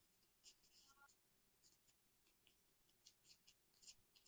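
Faint, irregular rustling and scratching of disposable plastic gloves handling pizza dough on a silicone baking mat, a dozen or so short scuffs as the dough is folded over and pressed down.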